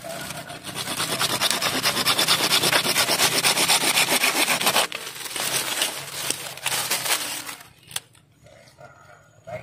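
Hand saw cutting through wood in fast, even strokes; the steady run breaks off about five seconds in, followed by two shorter bursts of sawing.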